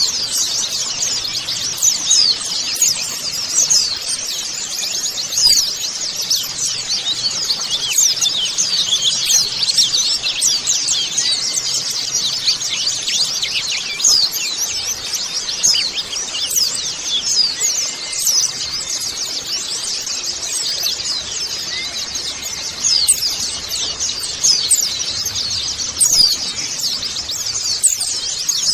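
A flock of white-eyes (pleci) twittering, with many thin, very fast, high chirps overlapping in a continuous chatter.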